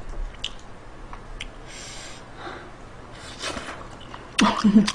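Close-miked eating sounds: chewing, with small clicks of chopsticks against food and tray. A brief voiced sound from the eater, the loudest thing, comes near the end.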